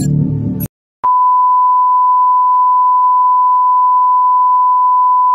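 Electronic music cuts off abruptly, and after a brief gap a steady 1 kHz sine test tone comes in and holds at one pitch: the reference tone played with a TV test card.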